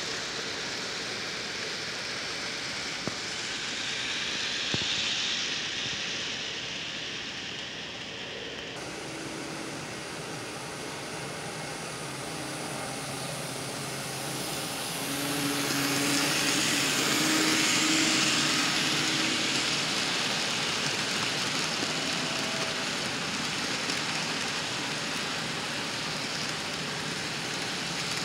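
Model freight train rolling past, its many cars' metal wheels on the track making a steady rushing clatter. The sound grows louder in the middle as the Life Like SD7 and Atlas GP9 model diesel locomotives pass close, with a faint hum from their electric motors.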